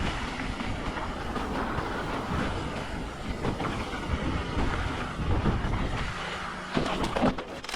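Mountain bike rolling fast down a dirt trail: a steady clattering rattle of tyres, chain and frame over rough ground. It eases about six seconds in, with a few sharp knocks near the end.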